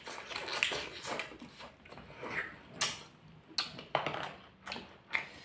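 Close-miked eating sounds of thick, spicy instant ramen noodles eaten by hand: slurping, chewing and wet lip smacks, as a string of short, irregular clicks and smacks.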